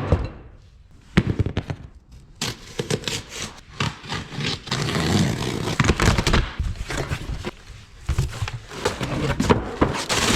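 A cardboard box being opened and its packing material handled, making an irregular run of crackles, scrapes and knocks.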